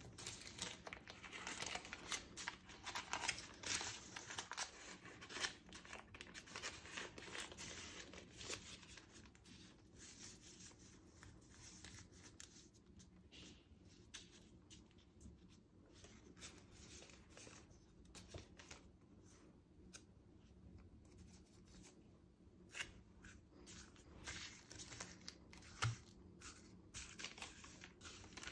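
Baking paper rustling and crinkling as hands lift and roll up a sheet of puff pastry, in scattered soft crackles that are busiest in the first few seconds, with one sharp tap near the end.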